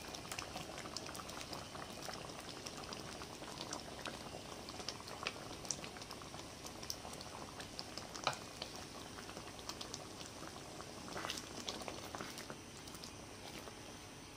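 Chilli sambal gravy with giant freshwater prawns simmering in a frying pan, bubbling steadily with many small pops and spits as the bubbles burst.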